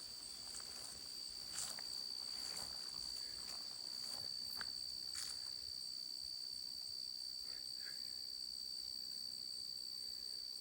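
Steady high-pitched insect chorus, with a person's footsteps walking through vegetation during the first half, fading out about five seconds in.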